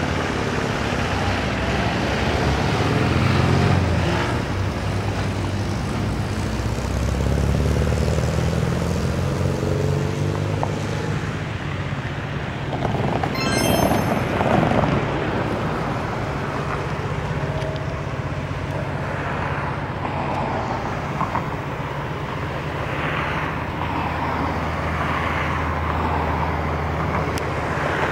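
Diesel locomotive of an approaching passenger train running at a distance: a steady low engine drone, with road traffic noise swelling and fading alongside. A short high-pitched chirp about halfway through.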